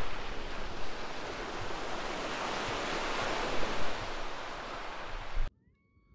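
Sea surf washing on the beach with wind gusting over the microphone. The sound cuts off suddenly about five and a half seconds in, leaving a faint bird call.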